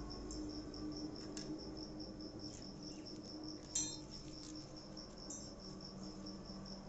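Cricket chirping steadily in even, rapid pulses, with a faint low hum. A single brief sharp click about four seconds in.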